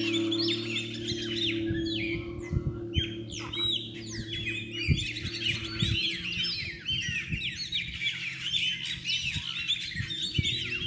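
Dense chorus of Brazilian songbirds and parakeets (chopi blackbirds, canaries and maritacas) calling over one another in many rapid, overlapping chirps and whistles. A low hum fades out about two seconds in.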